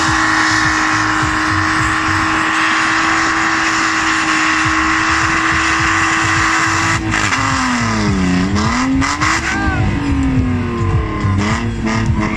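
BMW E36 drift car's engine held at steady high revs as it spins donuts, over a constant hiss of spinning tyres. About seven seconds in, the revs drop and swing down and up several times as the throttle is worked.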